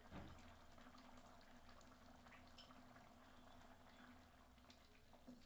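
Faint bubbling of a thick rajma curry simmering in a pan, with scattered small pops over a steady low hum. A soft bump right at the start.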